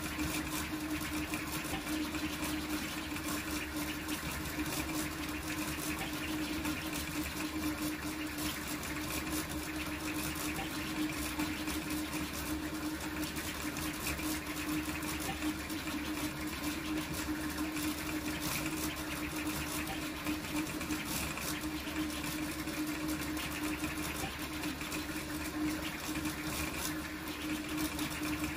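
Large toolchanger 3D printer printing at high speed: a steady hum with a rapid, busy buzz of the motors as the print head darts back and forth.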